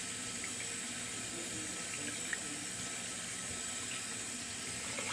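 Tap water running steadily into a bathroom sink while a shaving brush is rinsed out, with a few faint small knocks.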